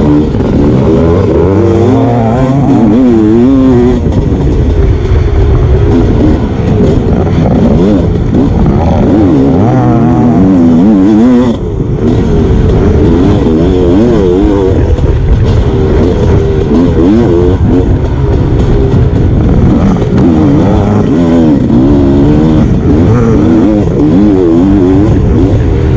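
Sherco 300 SE-R two-stroke dirt bike engine heard up close from on the bike, revving up and down over and over as it accelerates and shifts around a motocross track. There is a brief drop about twelve seconds in, when the throttle comes off.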